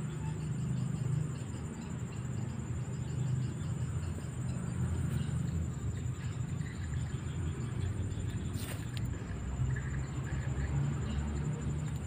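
A low rumble that swells and fades, under a steady high-pitched insect drone, with a few faint clicks or rustles in the second half.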